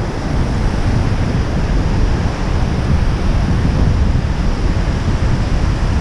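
Ocean surf breaking and washing up the sand, with wind buffeting the microphone in a steady low rumble.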